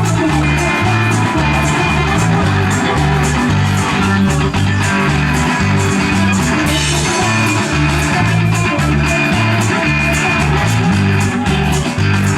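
A live rock band playing through a PA at a sound check: guitar over a bass line that steps from note to note, with a steady high ticking beat on top.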